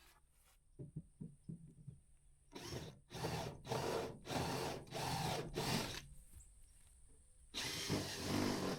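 Power drill with a step bit opening up holes in metal, run in a series of short bursts, then once more near the end.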